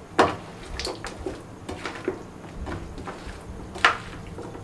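Hands mixing raw chicken pieces with sliced onion and tomato in a steel plate: wet squishing with scattered clicks against the metal, the sharpest about a quarter second in and near the end.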